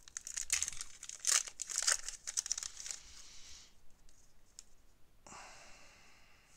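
Wrapper of a 2019 Topps Heritage baseball card pack being torn open and crinkled: a run of crackling rips that stops about three and a half seconds in. A short, steady rustle follows about five seconds in.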